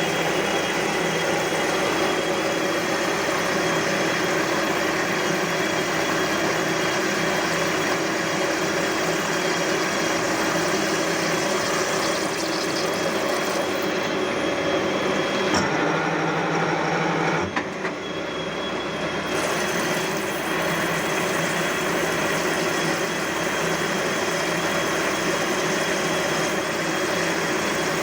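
CNC lathe running through a machining cycle on a metal flange part: a steady mechanical hum with a fixed high whine. About halfway through the sound briefly changes, the hiss above the whine drops away, and there is a single knock before the steady running resumes.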